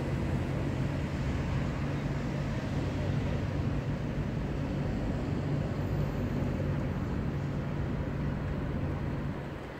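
Steady low rumble of city traffic with a low hum, easing off a little near the end.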